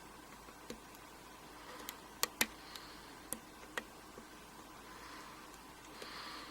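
Lock pick working the pin stack of a 5-pin Euro cylinder during single-pin picking: scattered light metallic clicks and ticks, the two loudest close together a little over two seconds in.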